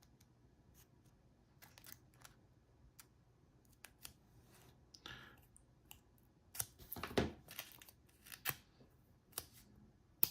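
Scissors cutting thin aluminium beer-can sheet to round off the corners of a padlock shim: scattered small snips and clicks, sparse at first and busier in the second half.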